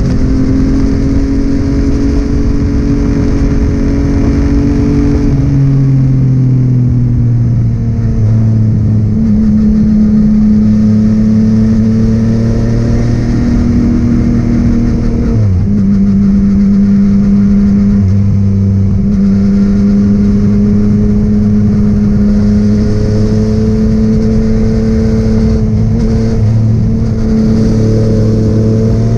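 Yamaha inline-three motorcycle engine running at road speed, a steady drone whose pitch steps down about five seconds in and dips sharply for a moment near the middle, with wind rush underneath.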